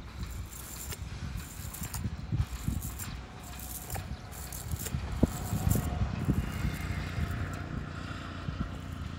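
Cast net being handled: the mesh rustling and its chain weights clinking and rattling in irregular short clicks, over a steady low rumble.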